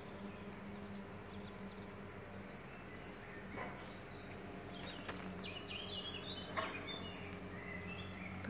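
Bees buzzing steadily at a tree in white blossom, the hum swelling and fading as they move, with a few small bird chirps around the middle.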